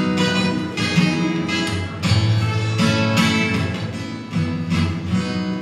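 Steel-string acoustic guitar strummed, chords ringing between strokes.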